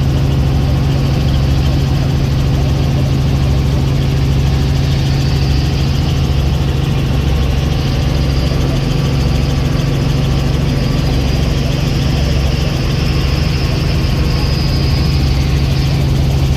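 Helicopter engine and rotor running steadily in flight, heard from inside the cabin: a loud, even drone over a low throb.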